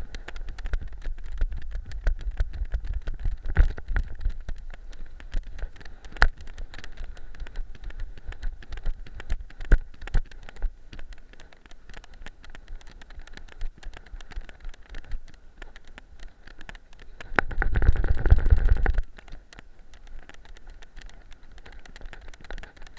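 Wind rumbling on the microphone of a camera worn by a weimaraner, with a constant stream of scratches and clicks as the dog rolls and walks on sand and shingle. A loud low buffeting comes in about eighteen seconds in and lasts a second or so.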